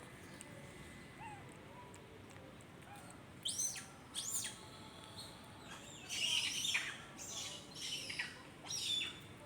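A string of short, high-pitched calls that rise and fall, starting about three and a half seconds in and coming thick and fast in the second half, over a quiet outdoor background.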